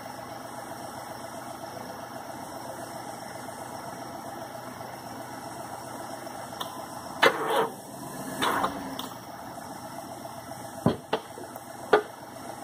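A vehicle engine idling steadily, with a few loud, sharp knocks and clatters about seven seconds in and again near the end.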